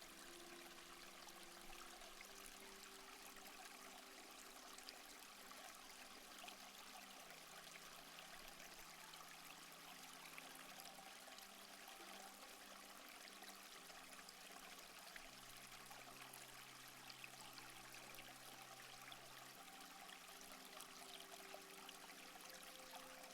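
Faint, steady rush of flowing stream water, with soft held low tones underneath that shift to a new pitch every few seconds.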